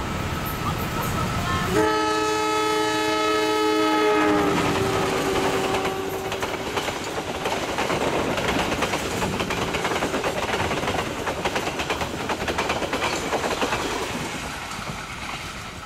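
Mutiara Timur passenger train's locomotive sounding its multi-tone horn in one blast of nearly three seconds, the chord sagging slightly in pitch as it ends. The coaches then rush past with a rapid clatter of wheels over the rail joints, which fades near the end.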